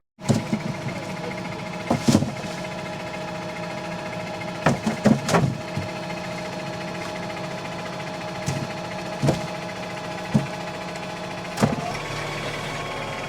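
Tractor engine running at a steady speed, with irregular sharp clunks and rattles about every one to three seconds, a cluster of them about five seconds in.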